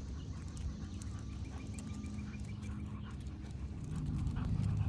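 French bulldog breathing noisily, a low steady rumble that grows louder near the end.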